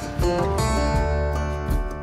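Background music led by plucked acoustic guitar, with a steady low bass line underneath.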